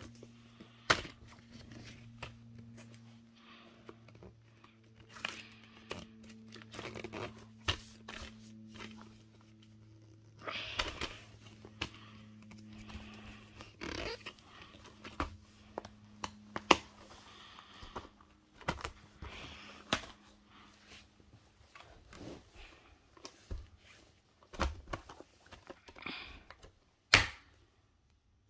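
Plastic Blu-ray and DVD cases being handled: irregular clicks and knocks of the hinged cases and the discs in them, with rustling of a paper insert. A faint low hum fades out about two-thirds of the way through.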